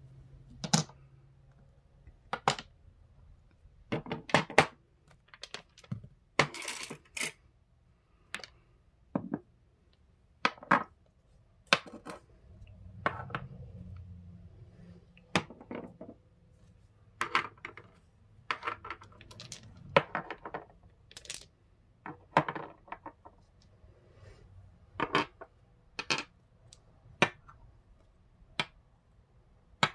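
Polished crystals and tumbled stones clinking and knocking as they are picked up and set down one at a time on a hard tabletop and book cover: a couple dozen sharp clicks at irregular intervals, some in quick pairs or clusters.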